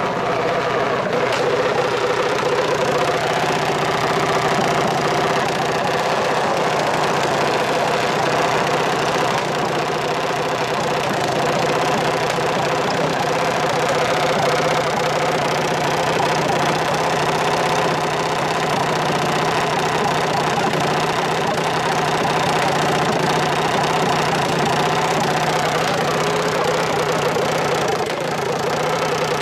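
Small dragster's engine idling steadily on the start line, holding an even pitch without revving.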